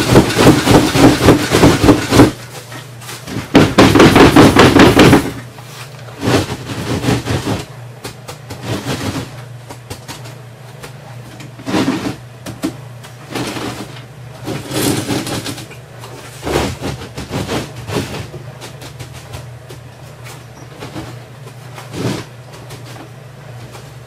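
Concrete-filled paver molds on a sawhorse table being jolted by hand to settle and vibrate the wet concrete, giving loud rapid knocks at about three a second. The knocking comes in two bursts over the first five seconds, then turns to quieter scattered knocks.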